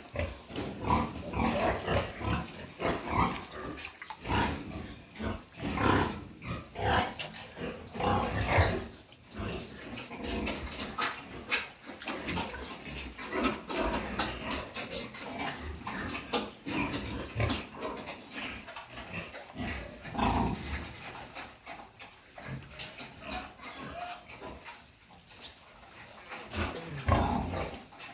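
A sow and her newborn piglets grunting and squealing in many short, irregular calls.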